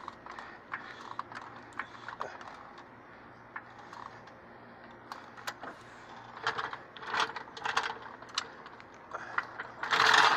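Irregular sharp clicks and clanks of metal tools or jack being worked, growing busier past the middle, with a loud clatter at the very end.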